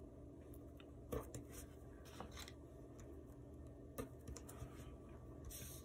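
Faint handling of sticker sheets and a paper planner page: a few soft clicks and scratchy rustles as a sticker is peeled and pressed down, with a slightly louder rustle near the end.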